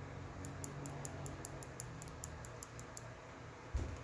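Faint, rapid, high-pitched ticking, about five ticks a second, over a low steady hum; the ticking stops about three seconds in. A single short thump near the end.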